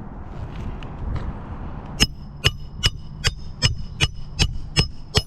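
A hammer striking metal on a shingle roof: nine quick, evenly spaced blows, about three a second, each with a short metallic ring. They start about two seconds in, after outdoor wind noise.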